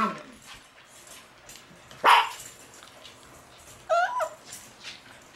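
Shiba Inu puppies: one sharp bark about two seconds in, then a short high yelp that wavers in pitch around four seconds in.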